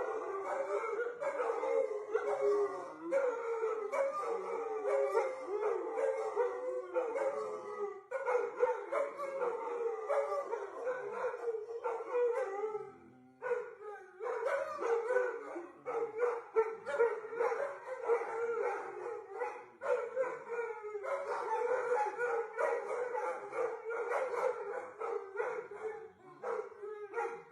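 A dog howling in long, wavering, up-and-down runs, with a few short breaks between them.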